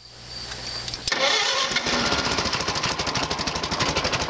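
1951 Case SC tractor's four-cylinder engine being started: it cranks briefly, catches about a second in, and settles into running with an even, rapid firing beat.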